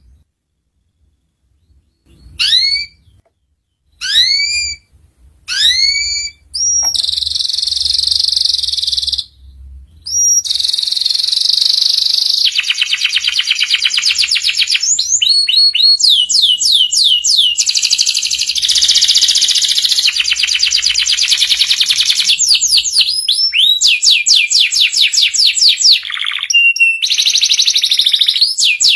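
Canary singing: a few separate rising whistled notes, then a long unbroken song of rapid trills and rolls, each roll a fast run of repeated notes.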